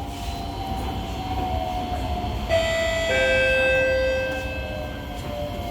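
C151A metro train braking into a station: a low running rumble with a whine that slowly falls in pitch. About two and a half seconds in, a high multi-tone screech sets in, holds for about two seconds and then fades.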